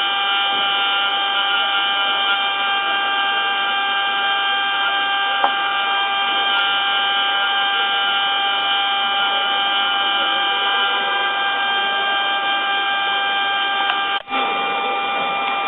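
A mini 5-axis CNC router running steadily while milling an impeller, giving a constant high whine of several steady tones over a hiss of cutting noise. There is a small click about five seconds in and a very brief dropout near the end.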